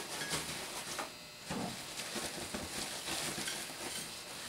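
Paper towel rustling and crinkling as fried potato wedges are tipped from it into a ceramic bowl, with a few soft knocks and scrapes of the wedges against the bowl.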